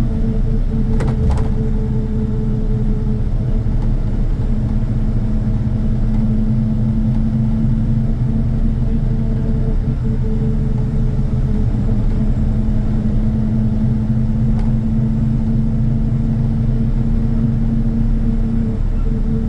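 Heavy engine running steadily at a constant speed with a deep, even hum, typical of road construction machinery. A couple of sharp clicks about a second in.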